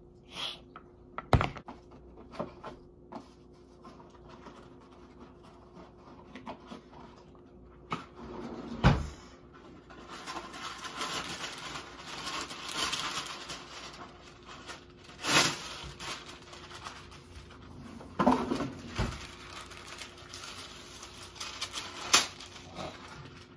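Kitchen handling sounds around a plastic mixing bowl: several sharp knocks and thumps on the countertop, and from about ten seconds in a rustling, scraping noise that comes and goes.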